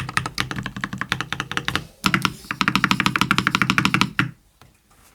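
Fast typing on a custom mechanical keyboard: an ilumkb Simpler60 with an aluminium plate, lubed JWK Cola switches, lubed Owlab v3 stabilisers and Aifei semi-transparent keycaps. There is a short break about two seconds in, the typing stops a little after four seconds, and one lone light keystroke follows.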